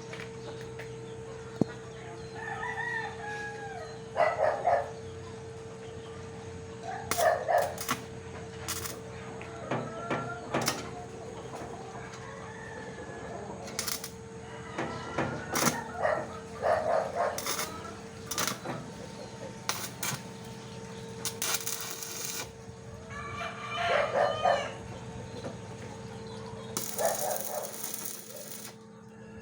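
Chickens clucking and roosters crowing again and again, over a steady hum. Sharp cracks come now and then, with two brief spells of hissing.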